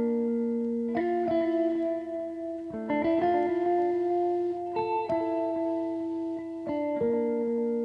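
Background music: a clean, sustained guitar melody, with notes plucked about once a second and left to ring.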